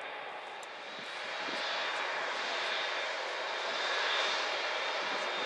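Engine Alliance GP7200 turbofans of an Airbus A380 running as the airliner rolls along the ground. A steady rushing jet noise with a thin high whine grows louder about a second and a half in, then holds.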